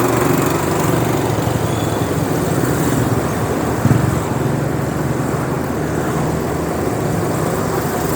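Small motorbike engine running steadily while riding, with wind and road noise. A short thump comes about four seconds in.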